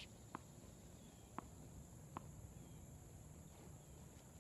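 Near quiet with a faint steady high hiss. Three light, short taps about a second apart: a tennis ball bounced on a hard court before the serve.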